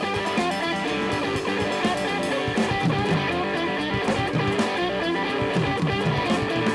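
Live rock band playing an instrumental passage, led by electric guitar with bass guitar and drums.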